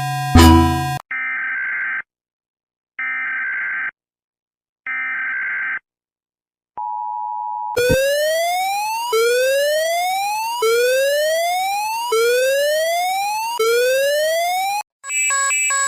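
A succession of electronic alarm signals: the last of a pulsing tone, then three one-second beeps about a second apart, a short steady tone, then a rising whoop repeated five times, each about a second and a half long. Near the end another steady, buzzing alarm tone begins.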